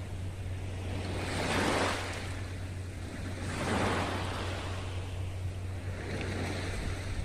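Small sea waves breaking and washing up onto a sandy shore, three surges of surf about two and a half seconds apart. A steady low hum runs underneath.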